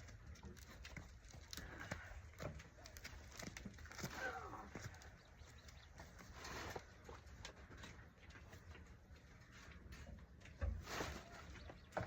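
Faint farmyard sounds: scattered small knocks and rustles with a few short animal calls around four seconds in, and a louder thump near the end.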